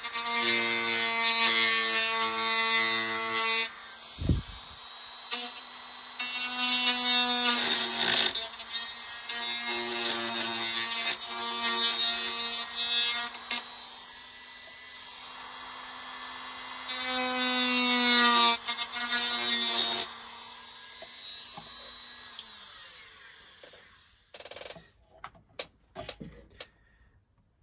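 A small handheld rotary tool with a fine drill bit whines as it drills into the wooden hull planking to open a gun port. It runs in several bursts, winding down about eight seconds in and again about twenty seconds in. A few faint clicks follow near the end.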